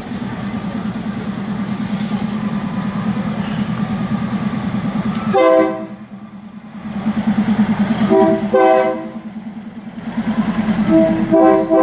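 A diesel railcar's engine runs with a steady low throb as the train rolls in slowly, then its horn sounds in short toots: once about five seconds in, twice around eight seconds, and twice more near the end.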